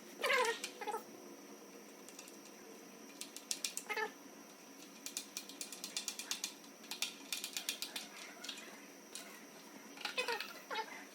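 Ratcheting tool clicking in quick runs as screws are driven in to join the pieces of a plastic front splitter. A cat meows a few times, about 4 s in and near the end.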